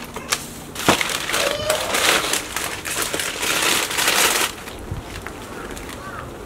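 Newspaper masking being pulled out of a freshly spray-painted scooter seat and crumpled: loud paper rustling and crinkling that stops about four and a half seconds in.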